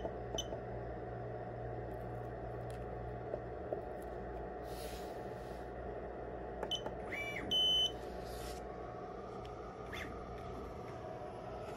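DDCS CNC motion controller beeping: a single key beep at the start, then a short rising chirp and a loud, steady high beep a little past halfway, after the start button is pressed. A faint rising whine follows near the end as the NEMA 23 stepper motors start to turn, over a steady low hum.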